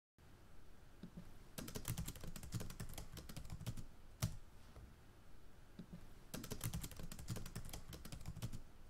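Typing on a computer keyboard: two runs of rapid keystrokes, with a single louder click between them about four seconds in.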